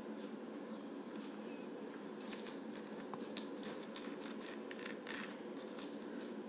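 Tiny plastic building bricks clicking as they are handled and pressed onto a small model: a quick run of light clicks from about two seconds in until near the end, over a steady low hum.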